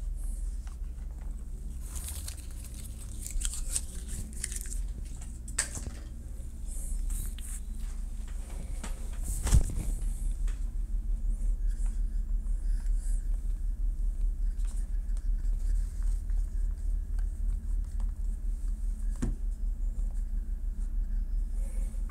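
Crinkling and rustling of small torn plastic wipe wrappers and packaging scraps being gathered up, with one sharp knock about ten seconds in, over a steady low hum.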